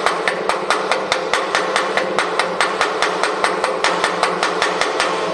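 Hand chipping hammer tapping rapidly and evenly on a fresh weld bead on a cast-iron part, about seven light strikes a second, knocking off slag and peening the bead to ease the weld's stress. A steady hum runs underneath.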